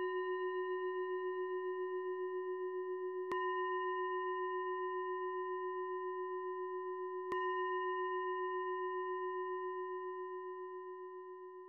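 Meditation bell ringing with a pulsing, wavering tone, struck again about three seconds in and once more about seven seconds in, then slowly fading near the end.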